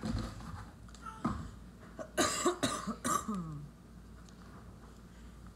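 A person coughing, about three coughs in quick succession around the middle, the last trailing off in a falling voiced sound.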